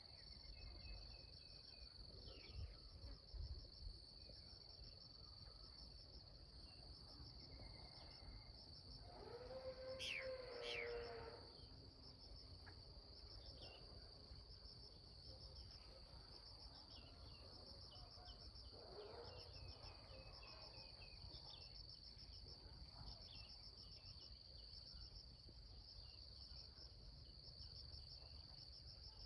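Faint, steady, high-pitched chirring of insects, pulsing evenly, with scattered short bird chirps. A distant rooster crows about ten seconds in, and again more faintly near twenty seconds.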